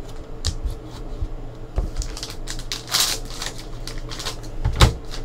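Trading cards handled on a desk with scattered clicks and taps, and a foil card pack's wrapper crinkling as it is torn open about two to three seconds in.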